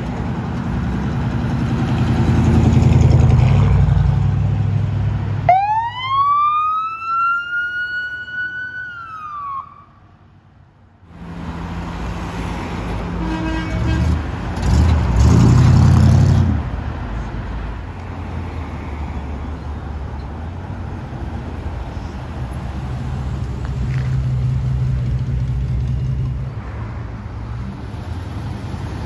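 Vehicle engines run throughout. About five seconds in, a siren winds up steeply in pitch, holds for a few seconds and then drops away.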